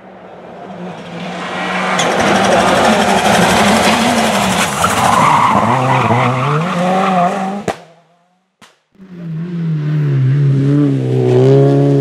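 Rally car engines at racing revs: a Peugeot 206 rally car's engine, the revs falling and rising as it brakes into a hairpin and accelerates out. The sound cuts off abruptly about eight seconds in, and a second rally car's engine starts a second later, its revs dipping and then climbing as it accelerates.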